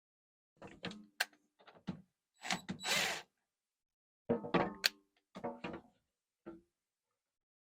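A string of irregular knocks and clunks, some briefly ringing, from objects being handled and set down, with a short scraping rustle about three seconds in.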